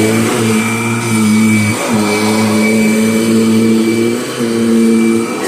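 2010 Kirby Sentria (G10) upright vacuum cleaner running with a freshly fitted drive belt: a steady motor hum that briefly dips in pitch a few times.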